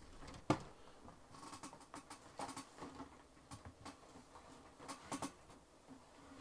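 Faint, scattered light clicks and taps of plastic model-kit parts and sprues being handled on a desk, the sharpest about half a second in.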